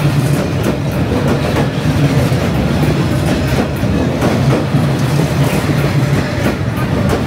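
Train passing at close range: a loud, steady rumble with the irregular clatter of its wheels over the rails.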